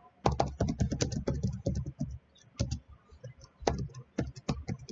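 Typing on a computer keyboard: a quick run of key clicks, a short pause about two seconds in, then more scattered keystrokes.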